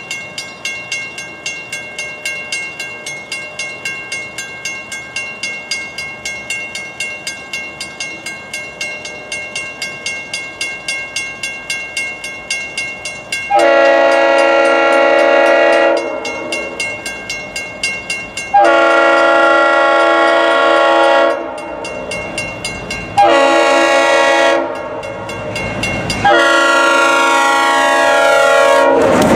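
A grade-crossing warning bell rings steadily and rapidly. Over it, an approaching freight locomotive's air horn sounds the crossing signal: long, long, short, long, with the last blast still sounding as the train reaches the crossing.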